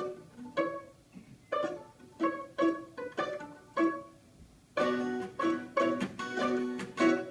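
Plucked string instruments at a sound check: separate plucked notes with short gaps, then from about two-thirds of the way in a fuller run of continuous picked notes.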